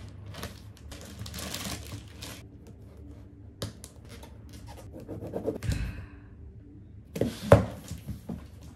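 Delivery parcel being handled and opened by hand: packaging rustles and tears in bursts, with scattered clicks and taps, a dull thud about two-thirds through and a sharp knock near the end.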